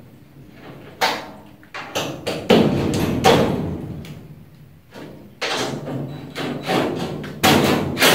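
A string of sharp metal knocks and clanks, about eight, spaced irregularly, as a steel front fender is fitted and bolted onto a 1966 Ford Bronco's inner fender apron.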